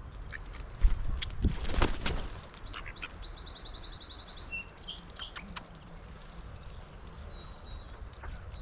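Small songbirds chirping, one giving a rapid high trill about three seconds in, over outdoor ambience. There are a few sharp knocks or rustles in the first two seconds, the loudest sounds here.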